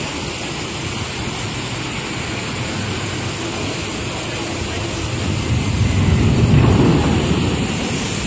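Steady rushing water, then, about five and a half seconds in, a loud heavy splash that swells and falls away over about two seconds as a Jurassic Park River Adventure boat lands at the foot of the drop and throws spray over the viewing area.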